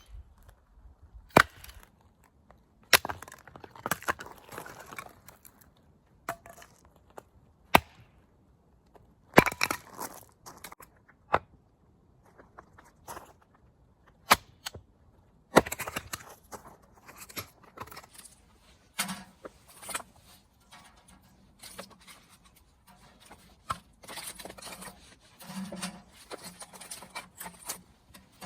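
Sharp knocks and clicks at uneven intervals, a second or two apart, with rustling and handling noise between them, like things being picked up and set down.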